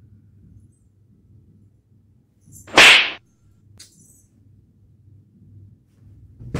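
A loud slap about three seconds in, with a second slap starting at the very end.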